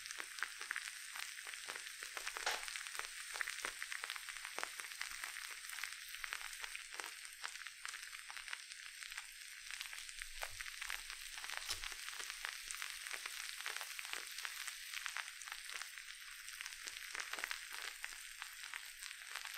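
Bath bomb fizzing under a covering of slime, which slowly dissolves in the reaction: a steady, fine crackling fizz of many tiny popping bubbles.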